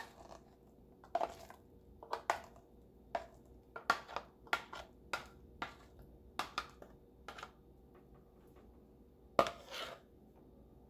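A metal spoon scraping and knocking hummus out of a plastic food-processor bowl onto a plate. It makes a run of short scrapes and taps about every half second, with a louder double knock near the end.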